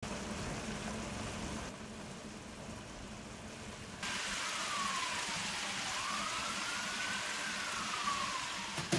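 Steady sizzling hiss of food cooking in a steel pot. It shifts in level about two and four seconds in. From about four seconds a faint tone slides down, then up, then down again.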